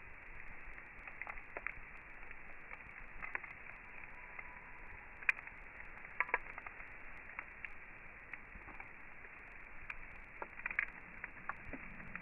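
Campfire crackling: scattered sharp pops and snaps over a steady low hiss, with the loudest pops about five seconds in and around six seconds in.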